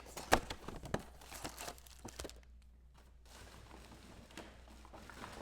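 Trading card pack wrappers crinkling and tearing and cards being handled: a run of sharp clicks and rustles in the first two seconds, a brief near-silent gap a little past halfway, then faint rustling.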